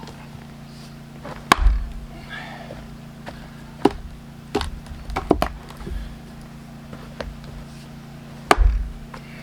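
Several sharp whacks of a splitting axe striking a round of larch, two of them loudest, about a second in and near the end, with lighter knocks and cracks between. The stringy softwood holds rather than bursting apart.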